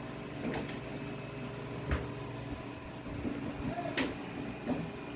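Eating sounds: a metal spoon knocking and scraping against a plate, with three sharp clicks about a second and a half to two seconds apart.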